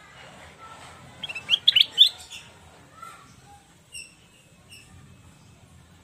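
Caged ruby-throated bulbul (kutilang emas) singing a quick, loud burst of sharp warbling notes about a second in, followed by two or three short high chirps.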